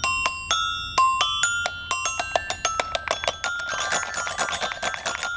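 Toy xylophone's bars struck with a mallet: ringing notes at changing pitches, a few separate strikes at first, then a fast run of strikes through the second half.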